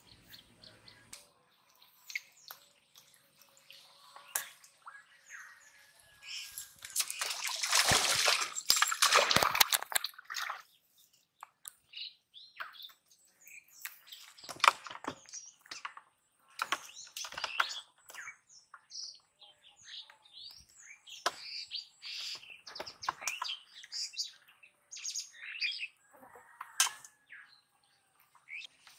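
Birds chirping with many short calls. A loud, noisy rush lasts about three seconds, roughly seven seconds in.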